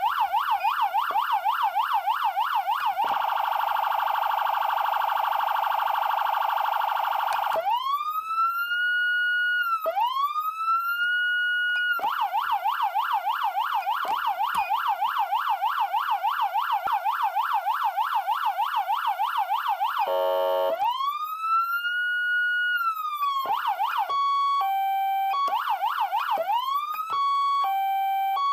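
Code 3 electronic siren amplifier sounding through a speaker and switching between its tones: a fast yelp, a rapid steady warble, and a slow wail that rises and falls. About twenty seconds in there is a short low horn-like blast, and near the end a two-tone high-low pattern.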